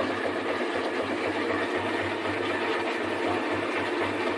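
Motor-driven coffee cherry pulping machine running steadily, with a constant low hum under an even mechanical churn.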